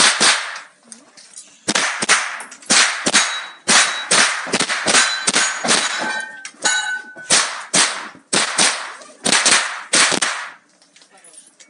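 A string of .22 rimfire rifle shots, about two a second with one short pause, with steel targets ringing after hits; the reports echo in an enclosed range and the shooting stops about a second before the end.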